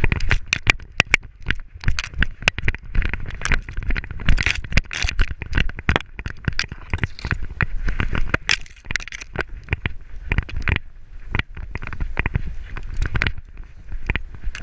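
Dry grass stems crackling and scraping against a dog-harness action camera as an English Springer Spaniel runs through tall grass. It is a dense run of sharp clicks and crackles over a low bumping rumble, easing off for a moment about two-thirds of the way through.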